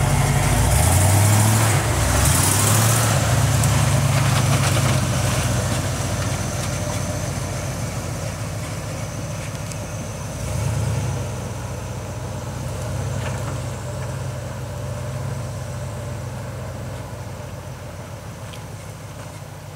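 Pickup truck engine revving as the truck reverses away, growing fainter; the revs climb in the first few seconds and again about halfway through.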